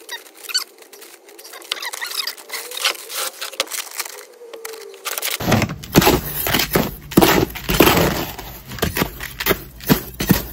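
Dry sharp sand and cement being scooped and stirred in a plastic tub by hand: gritty scraping and crunching, sparse at first and then louder and denser from about halfway through as the dry mortar mix is worked.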